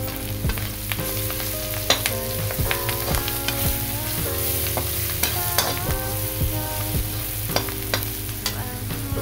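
Perforated metal spatula stirring onions and peas frying in oil in a metal kadai: a steady sizzle with irregular scrapes and clacks of the spatula against the pan.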